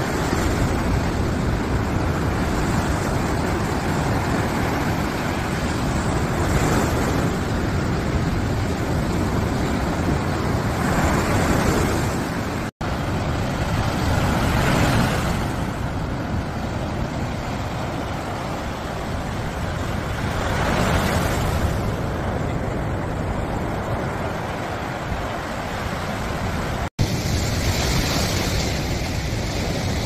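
Ocean surf breaking on a sandy beach: a continuous rushing wash that swells every four to six seconds as waves crash in, cutting out for an instant twice.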